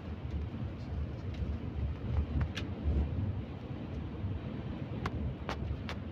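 Interior rumble of an intercity coach on the move: steady low road and engine noise, with a few light clicks in the second half.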